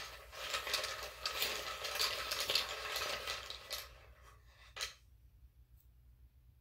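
A set of rune pieces being shuffled to draw the next rune: a dense clatter of small hard pieces knocking together that thins out after about four seconds, then a single sharp click.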